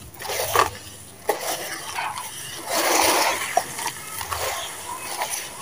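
Hands squeezing and crumbling wet, gritty sand and mud in a plastic tub of shallow water. The clumps make irregular squishing and crumbling sounds with scattered clicks of grit, loudest about three seconds in.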